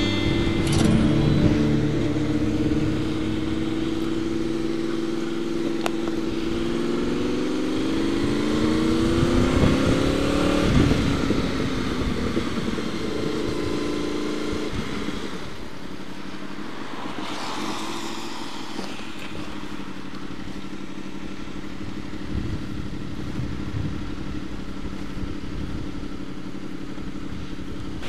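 Motorcycle engine running on the road. Its pitch climbs steadily as the bike accelerates about eight to eleven seconds in, then drops suddenly. In the second half it runs steadier and a little quieter.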